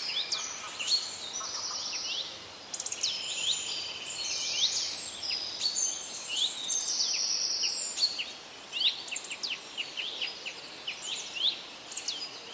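Small songbirds chirping and trilling, several at once: many overlapping high, quick downward-slurred chirps and short flat trills, with no pause.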